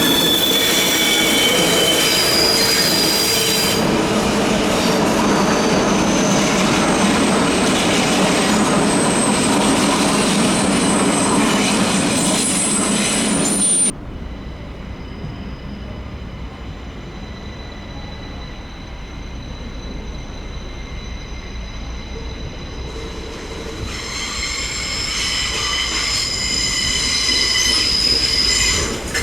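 Passenger train's wheel flanges squealing against the rails in a tight curve: several shrill tones sliding over one another above the rumble of the train. About halfway through the sound cuts off suddenly to a quieter stretch of low rumble with faint squeal, which builds again near the end as the squealing returns.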